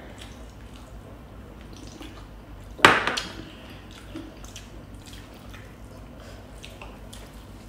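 Mealtime eating sounds: faint clicks of utensils and mouth sounds, with one loud short slurp about three seconds in.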